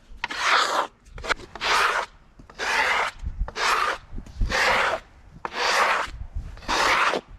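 Repeated brushing strokes across the fresh-sawn surface of an oak slab, about once a second, clearing off the sawdust.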